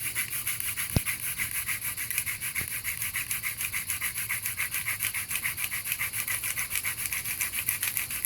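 Cocklebur hand-drill spindle spun back and forth between the palms, its tip grinding in the socket of a western red cedar hearth board: a rapid, rhythmic rasping rub. A sharp knock sounds about a second in, and a fainter one a moment later.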